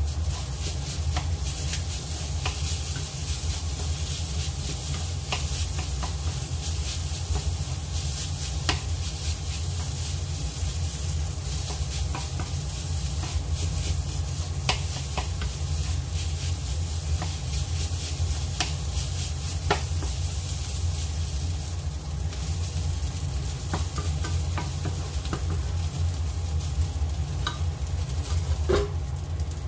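Fried rice sizzling in a hot frying pan as it is stirred and turned with a wooden spatula and chopsticks, with scattered clicks of the utensils against the pan, the sharpest near the end. A steady low hum runs underneath.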